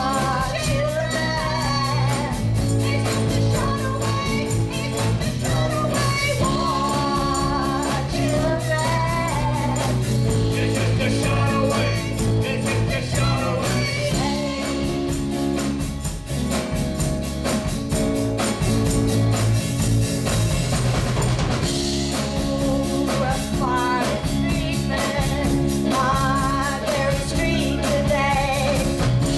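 Live rock and roll band playing: a singer over electric guitars, bass and a drum kit with a steady beat.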